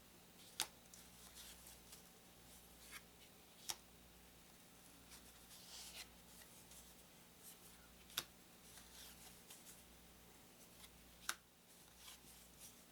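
Faint handling of thin paper game cards: soft rustling and sliding. Four sharp clicks, a few seconds apart, sound as cards are laid down.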